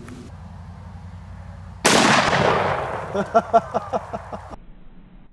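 A single shot from a Magnum Research BFR revolver in .30-30 Winchester, sudden and loud about two seconds in, followed by a long fading echo.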